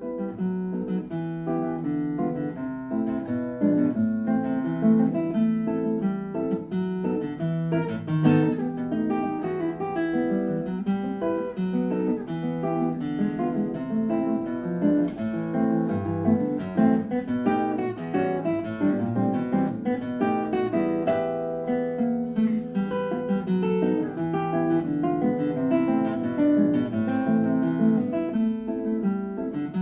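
Background music: an acoustic guitar playing a steady run of quick plucked notes.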